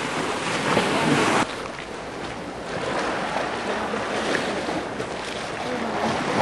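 Sea water surging and splashing against a concrete wall, with wind on the microphone. The louder rush cuts off abruptly about a second and a half in, leaving a softer, steady rush of surf and wind.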